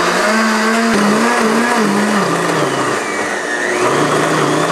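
Blendtec blender running hard, blending a jar packed with kale and spinach into a green liquid. The motor's pitch steps up and down several times as it works through the leaves.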